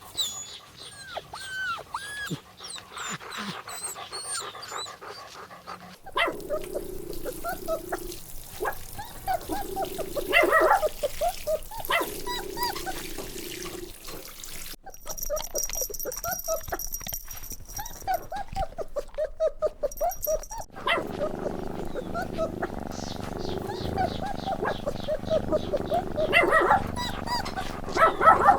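Puppies whimpering and yipping in many short, high calls, across several cut-together clips.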